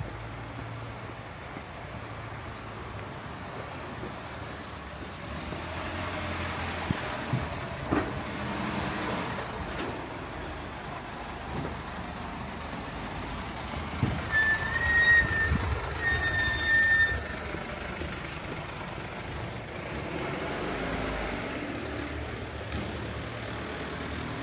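Vehicle rumble, with a few knocks, and a high tone sounding twice about halfway through, each about a second long.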